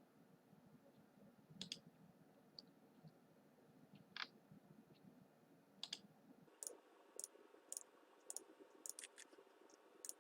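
Faint, scattered clicks of a computer mouse over near-silent room tone, a few at first and then more often in the last few seconds.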